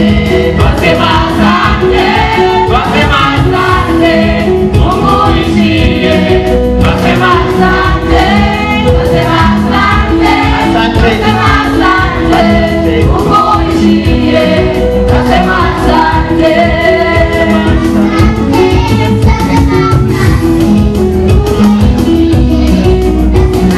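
Gospel music with a group of voices singing over a steady beat.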